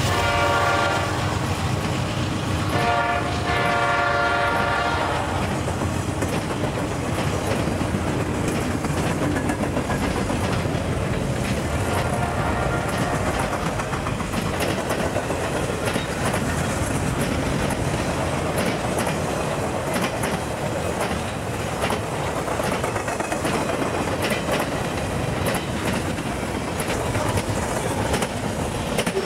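Train sounding its horn in two blasts, a short one at the start and a longer one ending about five seconds in, then the train rolling past with steady rumbling and the clickety-clack of its wheels over the rail joints.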